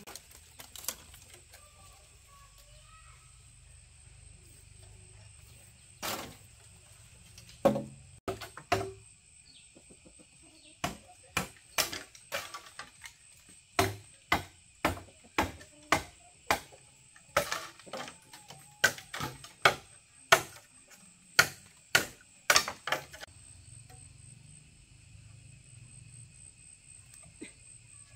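A series of sharp knocks or strikes at irregular spacing. There are a few scattered ones at first, then a run of roughly one to two a second for about twelve seconds in the middle. A faint steady high whine sounds underneath.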